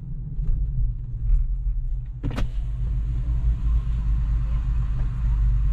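Low steady rumble of tyres and road inside a slowly rolling Tesla Model 3, an electric car with no engine note. There is a single sharp click about two and a half seconds in, after which a faint hiss of outside noise rises.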